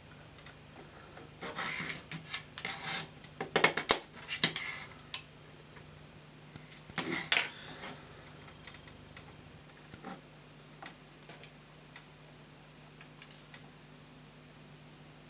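Small tool and metal parts clicking, tapping and scraping against a 3D-printed plastic locomotive chassis during model assembly. Two busy flurries of clicks come in the first half, then only scattered light ticks, over a faint steady hum.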